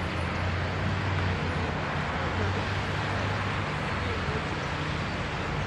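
Steady urban traffic noise: an even, continuous rumble with a low hum underneath.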